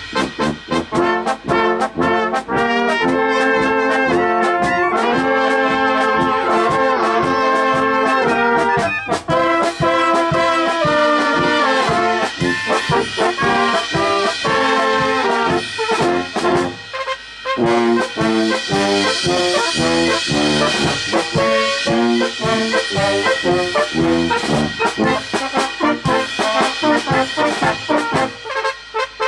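Brass band music: a tune on trumpets and trombones, played with a steady rhythm and a short break about two-thirds of the way through.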